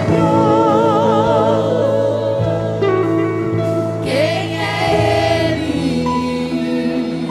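A women's vocal group singing a gospel praise song, with vibrato on long held notes over a steady instrumental accompaniment.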